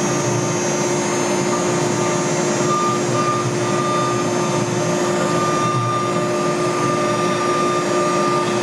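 Camaster Stinger CNC router's spindle running steadily with a constant whine as its bit carves cherry, over the even rush of dust collection at the dust shoe.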